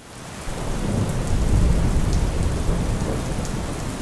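Steady rain with a low rumble of thunder. It fades in over the first second and is loudest about a second and a half in.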